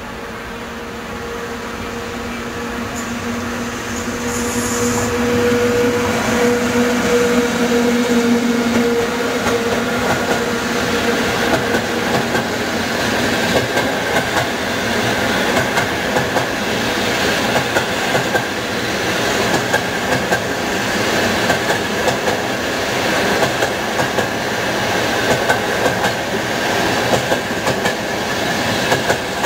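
Electric locomotive-hauled passenger train running by close: a steady two-note hum at first, then a growing rumble of coaches with rhythmic clacking of wheels over rail joints.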